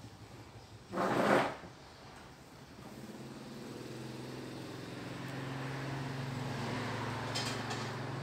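A brief loud noise about a second in, then a low engine hum that builds over a few seconds and holds steady.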